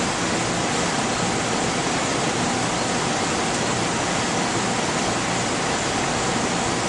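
Steady, even hiss of fans and ventilation running in an equipment-filled lab, with a faint steady hum-like tone underneath.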